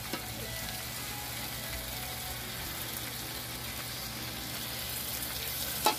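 Beef cheek broth being poured from a pot into a hot wok of sautéed meat, a steady pour over a continuous low hum.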